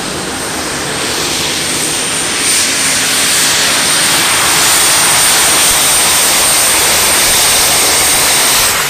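Light super stock pulling tractor's turbocharged engine at full throttle under heavy load while pulling the sled. The roar builds over the first few seconds, then holds, with a steady high whistle over it that stops near the end.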